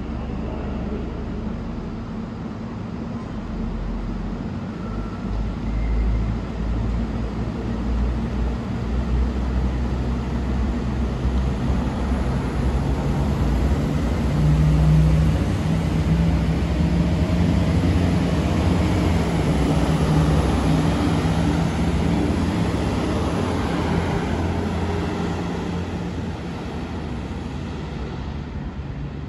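Siemens Desiro Classic (class 642) diesel multiple unit running its engines as it pulls out and passes close by. The engine hum builds to its loudest in the middle, as the train goes past, and fades as it moves away near the end.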